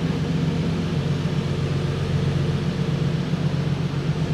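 Car engine idling steadily: an even, low hum that holds the same pitch throughout.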